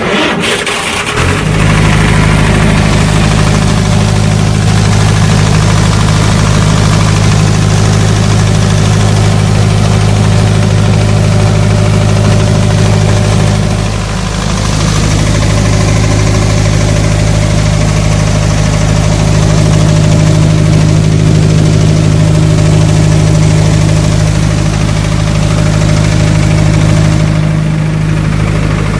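Diesel generator engine starting up, catching about a second in and then running steadily and loudly, with a brief dip in level about 14 seconds in.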